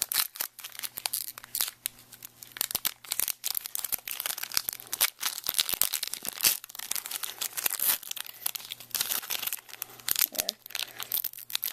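Foil Pokémon booster pack wrapper being torn open and crinkled by hand: a dense, irregular run of crackling rips and crinkles.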